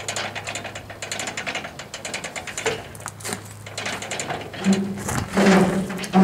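Rapid metallic ratchet clicking, many clicks a second, while the lathe is secured on a trailer. Near the end a short low voice sound is the loudest thing.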